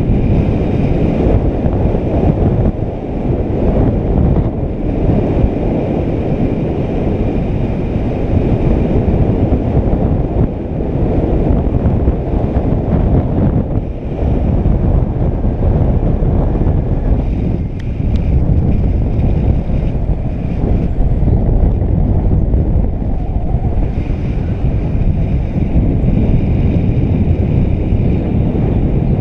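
Airflow buffeting a GoPro's microphone as a paraglider flies: a loud, steady, low wind rumble with small rises and falls.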